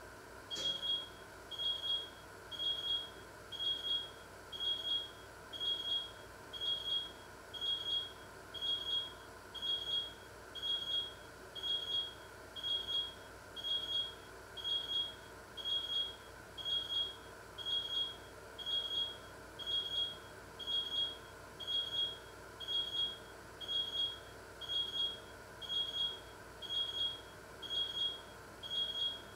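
Electronic alarm beeping: high-pitched beeps repeating steadily about once a second, starting with a click about half a second in.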